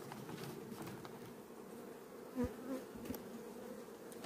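Honeybees buzzing steadily around an opened hive, a low continuous hum, with one light tap about two and a half seconds in.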